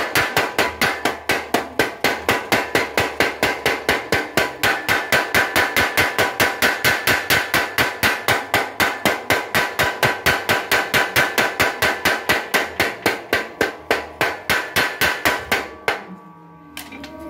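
Blacksmith's power hammer striking red-hot steel held in tongs: a fast, even run of ringing blows, about five a second, that stops near the end.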